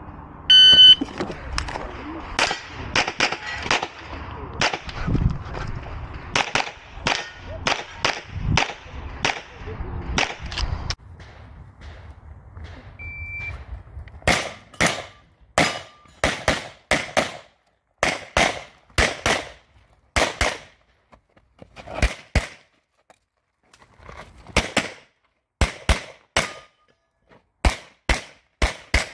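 A shot timer's electronic beep starts the course of fire, followed by rapid handgun shots. A second, fainter beep comes about 13 seconds in, then pistol shots mostly in quick pairs (double taps) a fraction of a second apart, with short gaps between the pairs as the shooter moves between targets.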